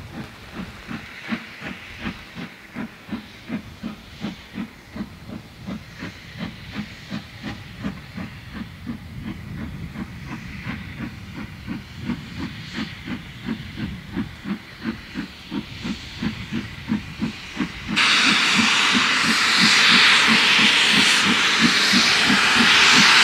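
Southern Railway Q class 0-6-0 steam locomotive No. 30541 working hard with a train, its exhaust beats chuffing about twice a second and growing louder as it approaches. About three quarters of the way through, a loud hiss of escaping steam starts suddenly over the beats.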